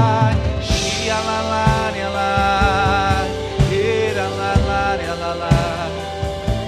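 Slow worship-band music: held chords with a wavering vibrato vocal line, regular drum hits, and a cymbal crash about a second in.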